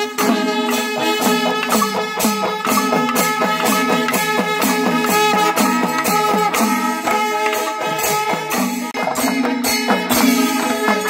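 Kerala temple melam: chenda drums and ilathalam cymbals struck in a steady beat under held wind-instrument tones from the ensemble's horns and pipes.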